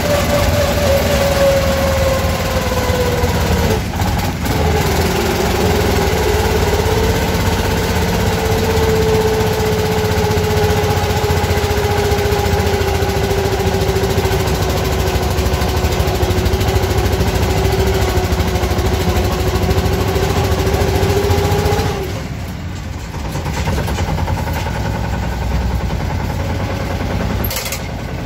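Yağmur YET 510 patpat's single-cylinder diesel engine running steadily while driving, with a brief dip in the note about four seconds in. About 22 seconds in the engine note drops and runs quieter at lower revs.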